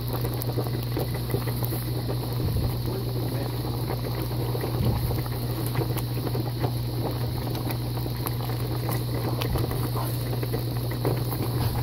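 Thick blackberry jam at a full rolling boil in a pot, bubbling and popping, with a steady low hum underneath.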